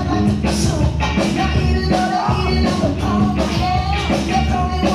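Loud dance music with a steady beat and a strong bass.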